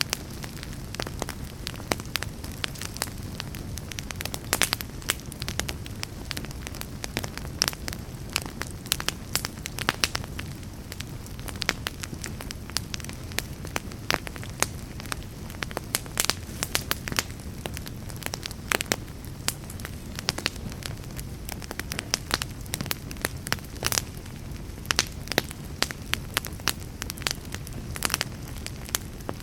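Wood fire burning in a fireplace, crackling with frequent sharp, irregular pops over a steady low rumble of flame.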